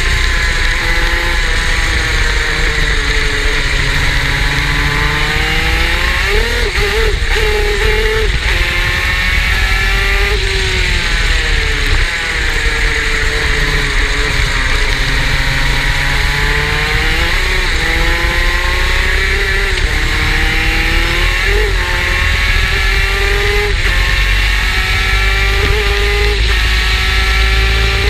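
Superkart engine at racing speed, its pitch climbing steadily along the straights and dropping sharply on braking several times as it goes round the lap.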